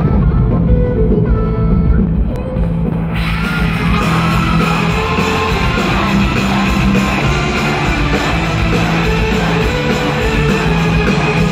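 Live rock band (drums, guitars, keyboard) playing a fast song, recorded from the crowd. The full band comes in about three seconds in, and audience yelling and cheering runs under the music.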